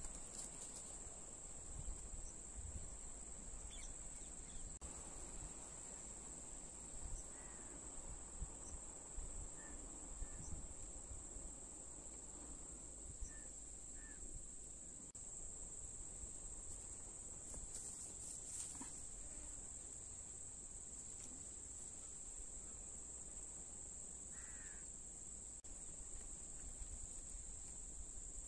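A steady high-pitched drone of crickets, with a few short bird chirps and one clearer bird call a little after twenty seconds in, over a faint low rumble.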